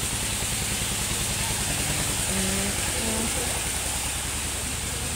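A portable engine (máy cơ động) running at a steady speed, with a constant hiss over its drone.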